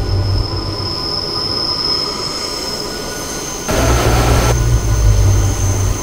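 Buenos Aires Subte Line B subway train running, with a low rumble and a thin, steady high-pitched wheel squeal. About four seconds in there is a short burst of hiss lasting just under a second, together with a stronger rumble.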